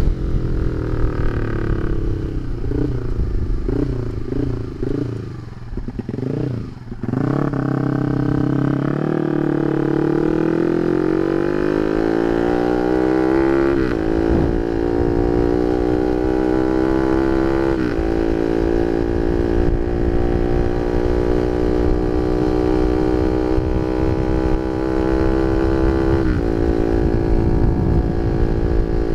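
Honda Sonic 150R single-cylinder four-stroke engine breathing through a CLD Monster aftermarket exhaust while being ridden. For the first seven seconds it runs low and uneven, then it pulls away with a rising note. The pitch drops at each upshift, about halfway through and again near the three-quarter mark, and it settles into a steady cruising note between shifts.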